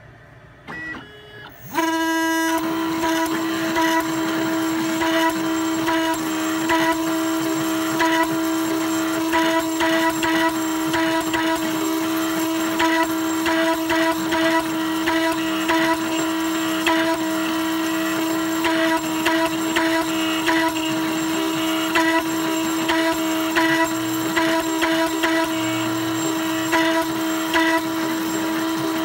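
Gravograph M20 IQ engraving machine running a diamond-tipped rotary burnishing tool on a stainless steel tag. It starts about two seconds in: a steady motor whine with constant irregular scratching and ticking as the tip works across the metal.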